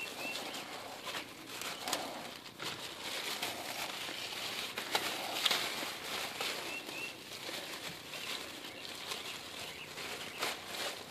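Thin plastic shopping bag rustling and crinkling as it is pulled and tucked over a trailer axle's wheel spindle and brake assembly.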